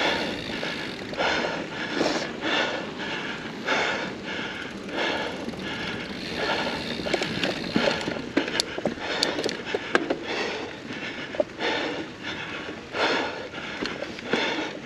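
A mountain biker breathing hard from exertion, heavy breaths about once a second, with scattered sharp clicks in the second half.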